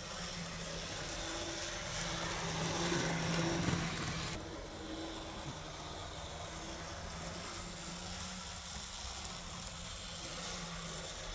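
AZL Z scale SD70ACe model locomotive running on its track: the small motor and wheels give a faint steady hum with hiss, a little louder about three to four seconds in.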